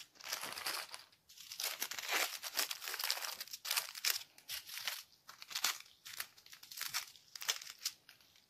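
Small clear plastic bags of diamond painting drills crinkling as they are picked up and sorted by hand, in a run of irregular crackles.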